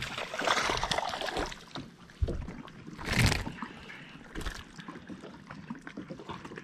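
Hooked bass splashing at the surface as it is lifted out of the water, then a low knock and a sharp louder clatter as it is swung in and handled, with water trickling.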